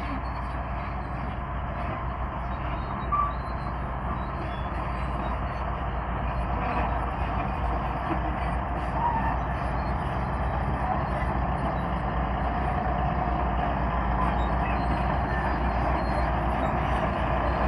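Komatsu D155A bulldozer's diesel engine running steadily under work, slowly growing louder, with a single brief knock about three seconds in.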